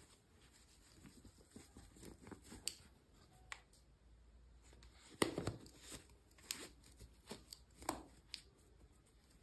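Hands handling small plastic toys and their packaging: scattered faint clicks, taps and rustles, busiest about five to six seconds in.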